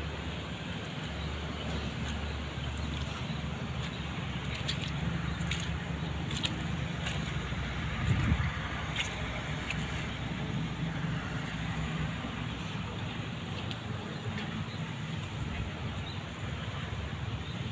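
Sumitomo SH350 hydraulic excavator's diesel engine running steadily, with scattered clicks and one louder thump about halfway through.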